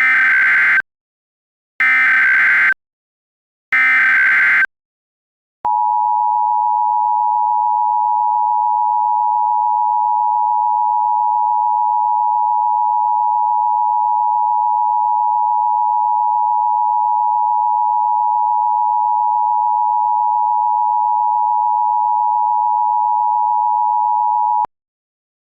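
Emergency Alert System tones: three short bursts of SAME digital header data, about two seconds apart. Then the two-tone EAS attention signal (853 and 960 Hz) holds steady for about nineteen seconds and cuts off abruptly.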